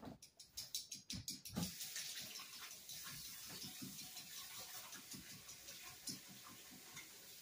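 A few light knocks, then a kitchen tap starts running into a stainless steel sink about a second and a half in, the water running steadily with hands working under it.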